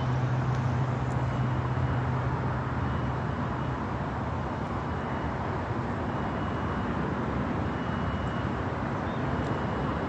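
Steady rumble and hiss of construction cranes at work, with a low engine hum that fades out after about three seconds and faint short high beeps every second or so.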